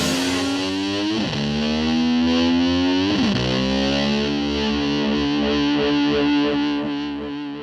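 Rock music track: a distorted electric guitar note that slides up in pitch twice, then holds and begins to fade out near the end.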